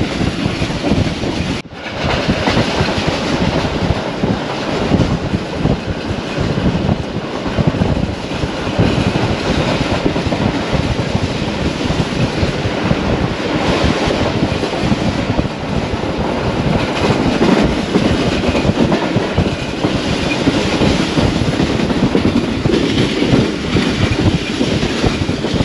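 Passenger train running at speed, about 110 km/h, heard from on board: its wheels clatter over the rail joints under a steady rushing noise. The sound cuts out for an instant about two seconds in.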